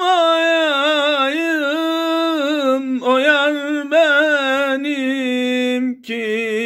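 A man singing a Turkish ilahi in makam uşşak, unaccompanied, drawing out long held notes on vowels with wavering, ornamented pitch. The line breaks off briefly about three and four seconds in and again near the end.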